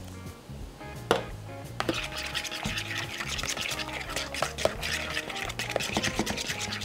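Metal spoon stirring beer batter in a plastic bowl: rapid scraping and clicking from about two seconds in, over background music.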